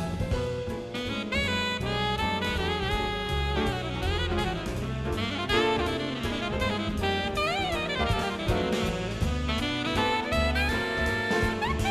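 Big-band jazz played live: a saxophone leads with held, bending melodic lines and quick runs, over piano and drum kit.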